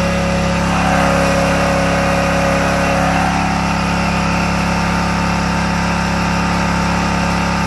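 Small portable generator's engine running at a steady speed, with a continuous hum.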